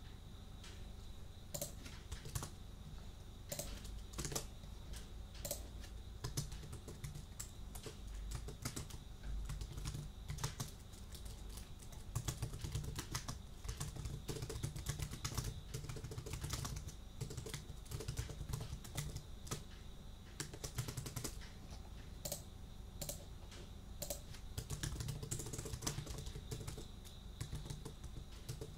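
Typing on a computer keyboard: irregular key clicks, with faster runs of keystrokes partway through.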